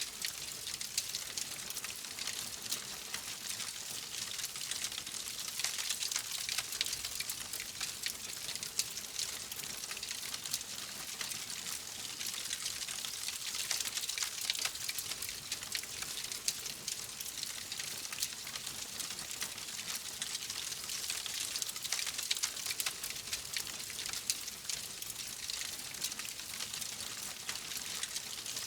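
Wood fire crackling in a fireplace: a steady stream of small, dense pops and snaps over a soft hiss.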